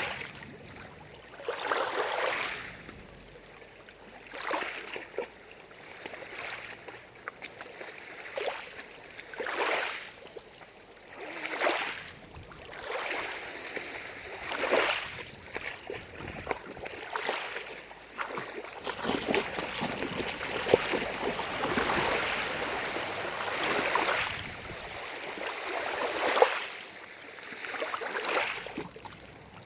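Small waves on a lake lapping and splashing at the shore, each wash swelling and fading every couple of seconds.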